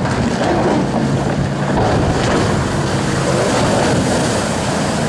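Large ship side-launched into a canal: the hull slides off the ways and hits the water with a long, rushing splash and wash of spray. A low droning tone runs through the first three seconds or so.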